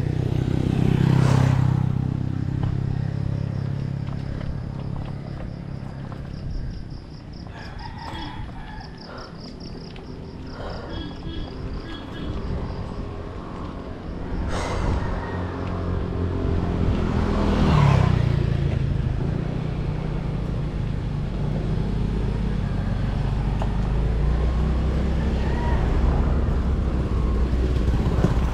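Wind and tyre rumble on a bike-mounted camera as a mountain bike rolls along a paved road, with two louder rushing swells, about a second in and around eighteen seconds in. Near the end a motorcycle engine's steady drone grows.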